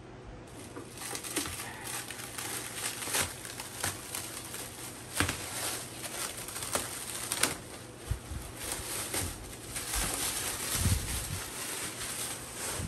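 Plastic stretch wrap being cut and pulled away by hand, crinkling and crackling throughout with many irregular sharp rustles.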